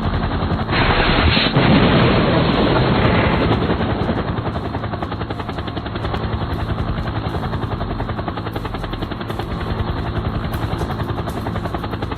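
A motor or rotor running steadily with a fast, even pulsing beat, with a louder rushing swell about one to three seconds in.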